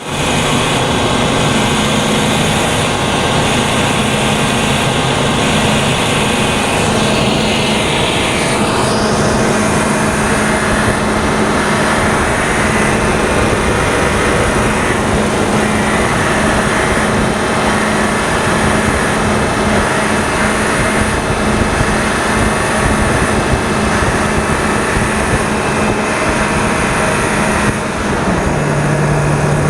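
Workhorse W-22 chassis's 8.1-litre V8 running with a steady buzzing noise, a hum that drops lower in pitch near the end.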